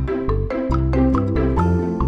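Upbeat background music with mallet percussion, such as marimba or vibraphone, over a steady bass beat.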